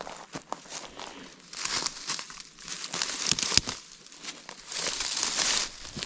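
Someone pushing on foot through dry scrub: leaves and brush crunching and crackling against clothing and underfoot, rising in three waves, with a few sharp twig snaps.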